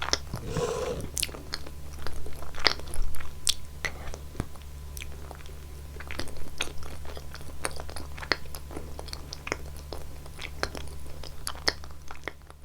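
A person chewing food close to the microphone, with many sharp wet mouth clicks and some crunching, over a steady low hum.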